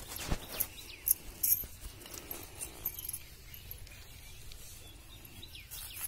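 Knife blade snipping and tugging at nylon fishing net: a few sharp clicks in the first two seconds, then faint rustling of the netting being worked.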